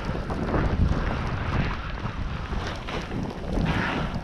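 Wind rushing over the microphone of a first-person camera as a snowboarder rides fast through deep powder snow, a steady rumbling rush with the board's slide through the snow underneath.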